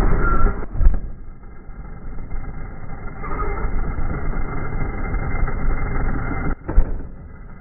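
Losi DBXL-E electric 1/5-scale RC buggy running, with two sharp knocks, about a second in and again near the end. The sound is dull and muffled, with nothing in the upper range.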